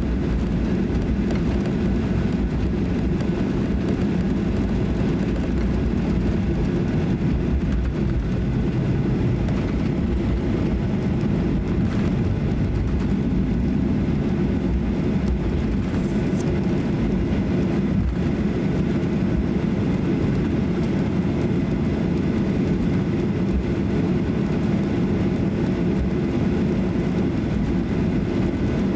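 Cabin noise of a Boeing 737-800 taxiing, its CFM56 turbofans running at low taxi thrust: a steady, even rumble and hum with no change in pitch.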